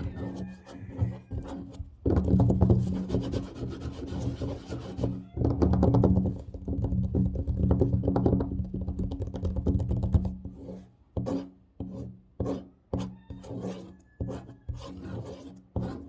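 Fast, aggressive scratching on a tabletop, a dense rasping that runs for most of the first two-thirds, then gives way to quick separate taps on the table near the end.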